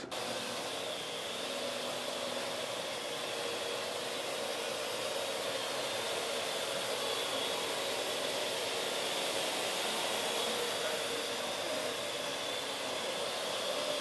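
Parrot AR.Drone quadcopter flying, its four propellers spinning with a steady hiss-like whir that holds even throughout.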